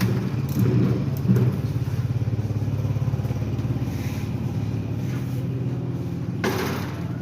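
Motorcycle engine running steadily at idle with an even, rapid pulsing. A short burst of hissy noise comes about six and a half seconds in.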